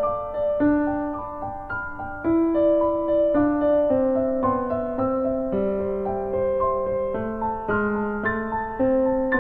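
Background piano music: a slow, gentle melody of held notes, a new note roughly every half second to second.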